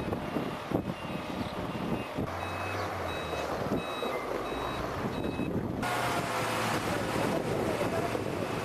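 Electronic warning beeper, like a truck's reversing alarm, beeping at two pitches about twice a second over outdoor rumble and wind. The beeping stops at a cut about six seconds in.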